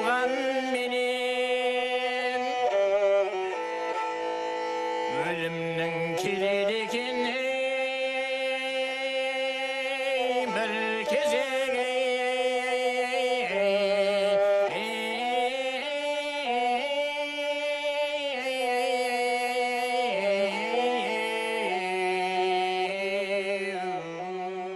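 Kobyz ensemble, Kazakh bowed horsehair-string fiddles, playing a slow melody of held bowed notes that slide between pitches.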